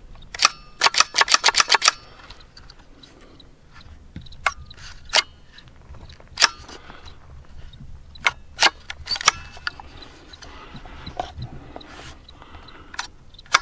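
Metallic clicks and clacks of a Rock Island TM-22 .22 rifle's action being worked by hand: a quick rattle of about eight clicks early on, then single clicks spaced out through the rest. The bolt is being pulled to eject a live round that stays stuck in the chamber, a fault the owner puts down to an extractor that is probably dirty or has a weak spring.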